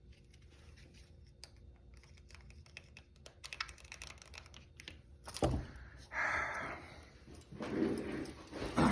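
Handcuffs being handled: many light metal clicks and rattles, a thump about five and a half seconds in, then rustling near the end.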